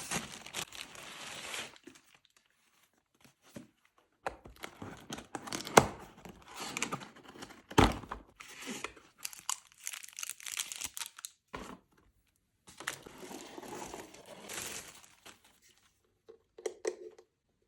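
Packaging being torn open and crinkled by hand in irregular bursts with short pauses, with a few sharper cracks around six and eight seconds in.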